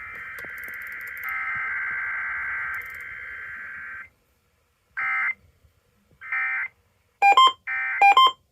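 Emergency Alert System digital data tones: a harsh, modem-like screech for about four seconds, then two short bursts of the same screech. Near the end come a quick series of sharp electronic beeps at several pitches.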